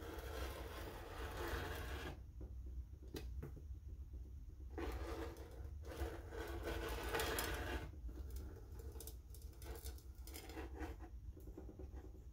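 A rotary fabric cutter rolls along a ruler, cutting through T-shirt fabric over a cutting mat, in two long strokes. A few light clicks and taps of handling follow near the end.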